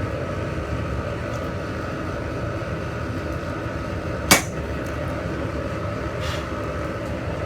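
A single sharp, ringing hammer blow on metal about four seconds in, with a fainter knock a couple of seconds later, over a steady mechanical hum.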